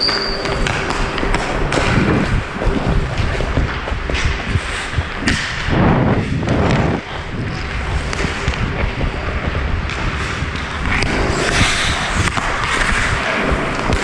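Ice hockey skates scraping and gliding on rink ice, with repeated knocks and thuds of sticks and pucks, heard close up from a skater's head-mounted camera.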